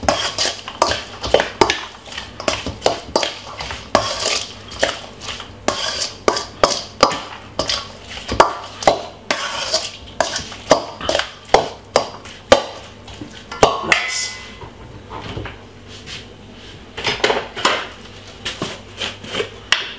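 Metal spoon scraping and clinking against a stainless steel mixing bowl as diced raw chicken is stirred and rubbed with seasoning: a quick, irregular run of clinks that breaks off for a few seconds about two-thirds through, then a short last flurry.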